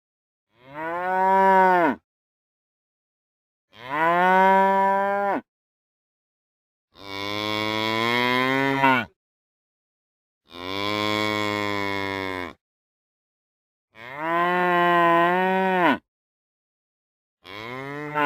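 A cow mooing: six separate long moos, one every three seconds or so, each a pitched call that rises and then falls, with dead silence between them and another moo starting at the very end.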